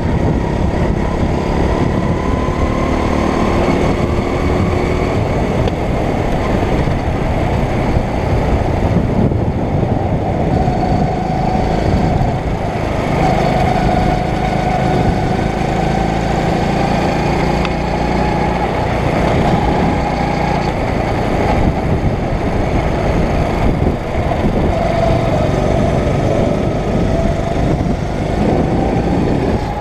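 Go-kart's 9 hp single-cylinder four-stroke engine running hard, heard from on board the kart, its pitch rising and falling as the throttle is worked through the corners, over steady road and wind rush.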